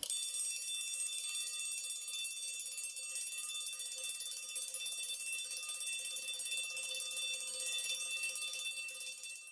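Alarm clock bell ringing continuously at a steady level with a bright, high, metallic ring. It starts suddenly.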